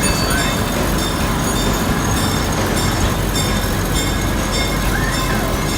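Galloping Goose railcar running along its track, a steady rumble of motor and wheels heard from aboard.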